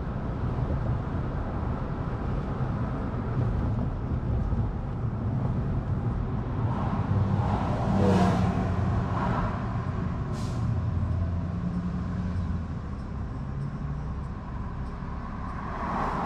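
A car driving on a city street: a steady low road and engine rumble, with a louder whoosh about eight seconds in, a sharp tick about ten seconds in, and a smaller swell near the end.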